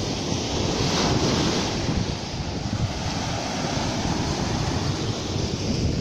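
Small waves breaking on a sandy beach, their foam washing up the sand in a continuous hissing wash that swells slightly about a second in.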